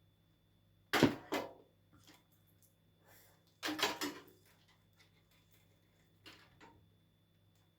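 Knocks and clatter of computer parts being handled during assembly: two sharp knocks about a second in, a short rattle of knocks near the middle, and two fainter taps later.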